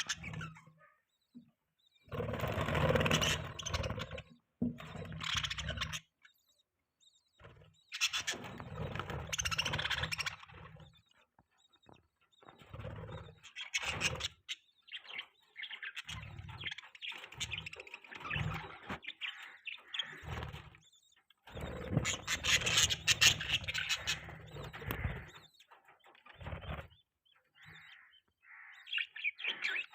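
Budgerigar chirping and warbling in bursts of a few seconds, with short quiet gaps between them.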